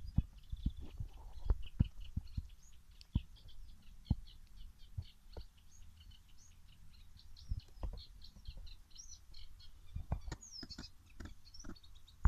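Small birds chirping in quick, short notes throughout, over a low rumble with scattered thumps.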